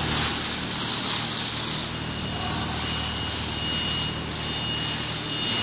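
Plastic stretch film rustling as it is pulled off the roll and wrapped around a vessel, for about the first two seconds, over a steady low hum.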